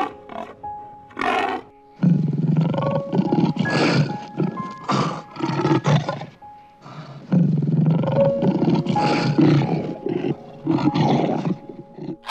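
Lion roaring in two long runs of repeated calls, the first starting about two seconds in and the second a second or so after it ends, over soft background music. A few short pig grunts come just before the first run.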